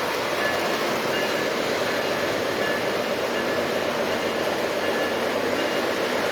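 O gauge model train running on three-rail track: a steady whir of the motor and the wheels rolling over the rails.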